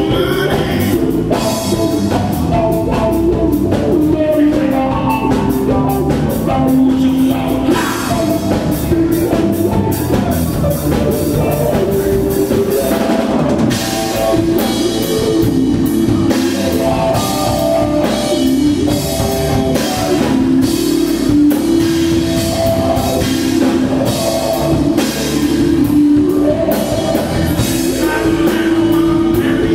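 Live rock band playing: electric guitar, electric bass and a drum kit, loud and continuous with a steady beat.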